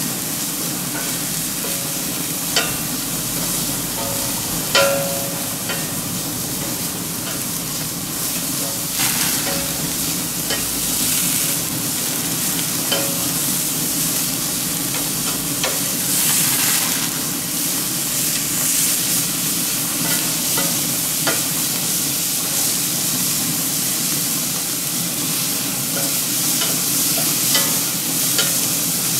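Ostrich steaks sizzling on the grates of a gas grill, with a wooden spoon stirring and knocking in a steel pot and a few sharp clicks, the loudest about five seconds in.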